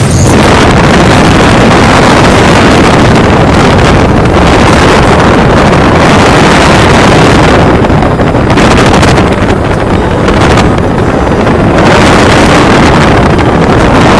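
Small aircraft in flight: a loud, steady rush of engine noise and wind buffeting the microphone.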